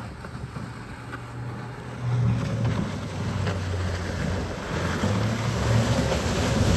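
Outboard motor running at speed on a RIB, a steady low hum that gets louder about two seconds in, over rushing water and wind on the microphone.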